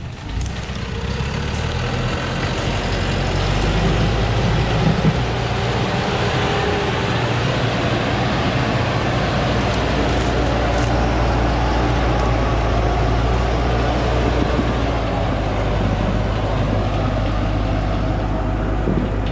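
Thaco Forland FC950 4WD truck's diesel engine working hard under load as the truck climbs a steep, loose dirt slope, tyres churning in the clay. The sound builds over the first few seconds, then holds steady and loud.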